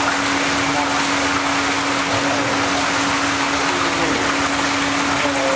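A machine running with a steady hum: one constant low tone over an even hiss that does not change.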